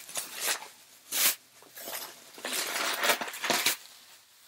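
Plastic bubble wrap crinkling and rustling as it is handled and lifted out of a shipping box, in several uneven bursts. The sharpest burst comes about a second in, and a longer stretch of crinkling follows in the second half.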